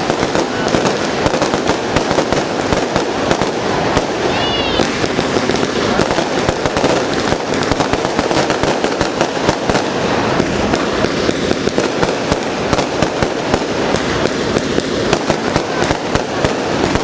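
Aerial fireworks display: a continuous barrage of shell bursts and crackling bangs, many each second, with a short warbling whistle about four seconds in.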